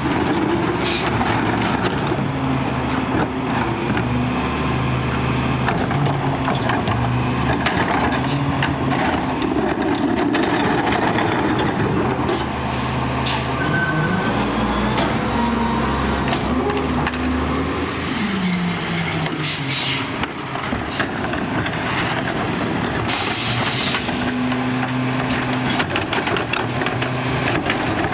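Garbage truck's diesel engine running, its pitch rising and falling several times, with short hisses of air brakes about a second in and twice near the end.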